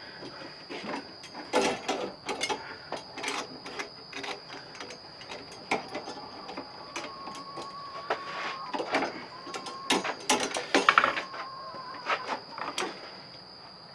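Steel jaws, springs and chain of a 330 Conibear body-grip trap clinking and knocking as the trap is worked in a bench vise: irregular metal clicks and rattles.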